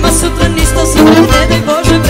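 Loud dance music with a steady beat and a bass line.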